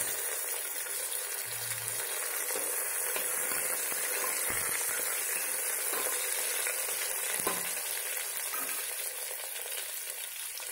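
Chopped potato, onions and peanuts frying in oil in a pressure cooker, a steady sizzle, with a spoon stirring and scraping the pot around the middle.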